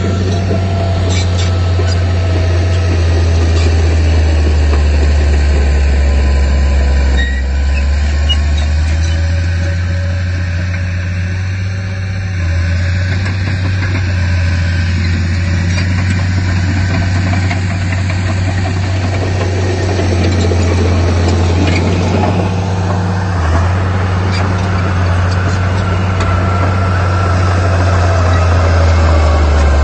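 Heavy diesel engine of earthmoving equipment (bulldozer or dump truck) running steadily with a deep, even drone.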